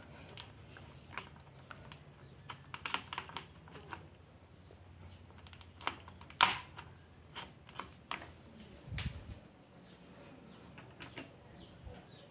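Scattered light clicks and knocks from hands handling the desktop PC and its cables, with one louder knock about six and a half seconds in.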